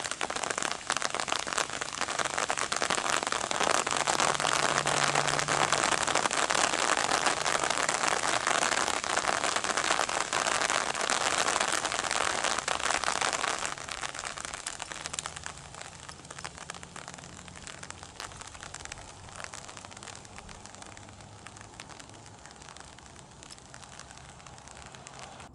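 Rain pattering densely on an umbrella, a close run of separate drop ticks. It thins out and grows quieter just past halfway, as the shower eases.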